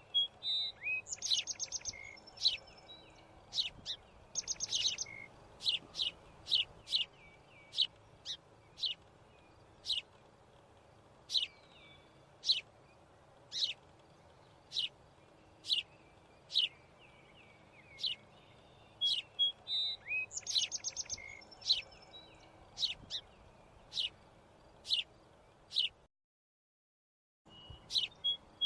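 Small birds chirping: a steady run of short, high chirps about once a second, with a few fast buzzy trills mixed in. The sound drops out completely for about a second and a half near the end.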